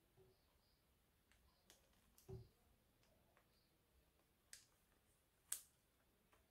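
Near silence with a few faint clicks and crinkles of gloved hands handling a cellophane-wrapped cardboard perfume box: a soft knock a little over two seconds in, and the sharpest click about five and a half seconds in.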